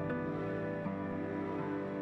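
Slow, soft background music with sustained low string-like tones, the notes changing about once a second.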